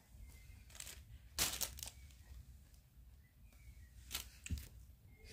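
A few faint crackling, rustling noises, the loudest cluster about one and a half seconds in, with two softer ones near the end.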